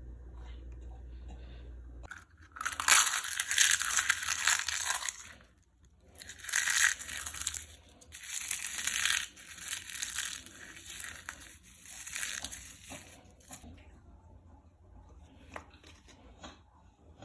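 English bulldog eating raw beef lung and chicken eggs: loud chewing in two long bouts beginning about two seconds in, with a short break in between, then fainter, scattered chewing sounds. A low hum stops about two seconds in.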